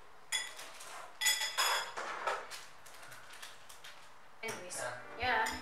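Spoon clinking and scraping against ceramic bowls while sauce sachets are torn and squeezed over instant noodles, in several short bursts. A brief voice comes in near the end.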